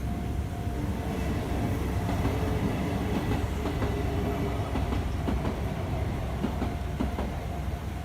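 A Kintetsu Minami Osaka Line train passing over a level crossing, its wheels clacking over the rail joints, with more clacks from about three seconds in. The crossing's warning bell rings as a steady tone behind it.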